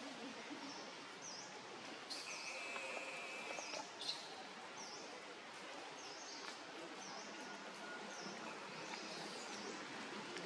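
Outdoor woodland ambience: a bird repeats a short, high chirp that dips and rises in pitch, about once a second, over a steady background hiss. A steady buzzing tone runs for about a second and a half around two seconds in, and a single sharp click comes about four seconds in.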